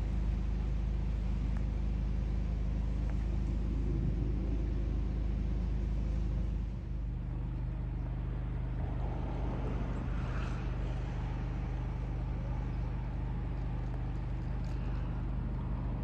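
Hire motor cruiser's inboard diesel engine running at low revs as it manoeuvres, a steady low hum whose note changes about seven seconds in.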